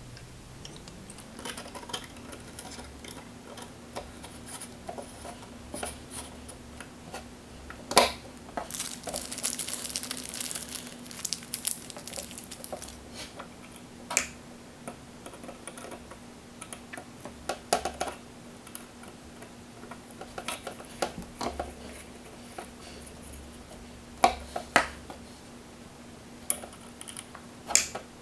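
Scattered small clicks and taps of a hex driver and metal screws against a carbon fiber drone frame as the flat-head screws are tightened, with a few seconds of scratchy rustling about a third of the way in. A faint steady hum runs underneath.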